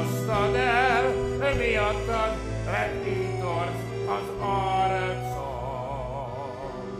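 A man singing in an operatic style, holding long notes with wide vibrato over a sustained instrumental accompaniment.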